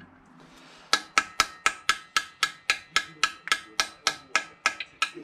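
Hammer blows knocking the last cylinder liner and piston out of a Rover K-series engine block. The strikes start about a second in and come steadily at about four a second, each with a short metallic ring.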